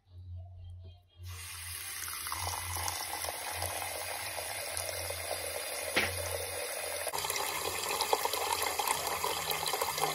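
Water running from a kitchen tap. It starts about a second in and runs steadily, with a single click about six seconds in, and its sound changes slightly about seven seconds in.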